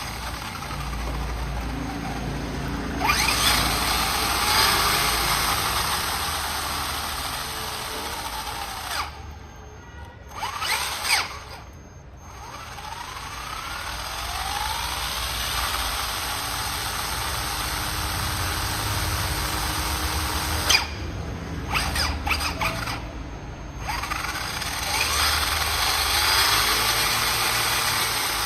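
A handheld power tool running in several long spells with short pauses, with squealing sweeps in pitch over a steady hiss and a few sharp clicks between spells.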